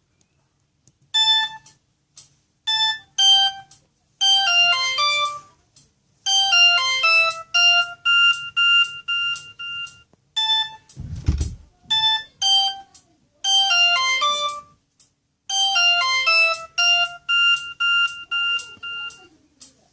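Mobile phone ringtone, a Samsung E2121B tune played through a Sony Ericsson W595's loudspeaker: a simple electronic melody of short beeping notes in repeating phrases, with a few longer held notes. A low thump sounds about halfway through.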